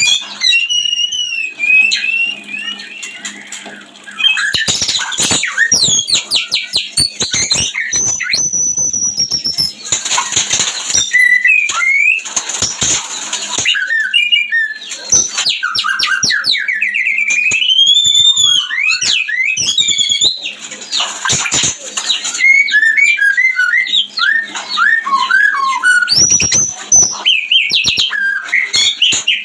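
White-rumped shama (murai batu) singing a mating song: a continuous run of loud whistles, sliding notes, rapid trills and harsh chatters.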